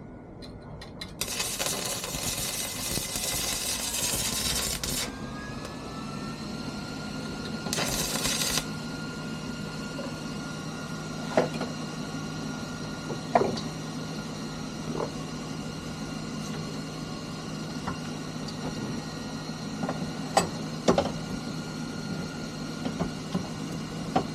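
A motor starts with a rush of noise, its pitch rises, and it settles into a steady hum, with a short burst of noise and a few sharp knocks later.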